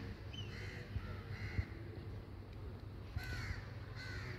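Birds calling outdoors: several short, arching calls, one near the start, one about a second in, and a pair over the last second, over a low steady background rumble.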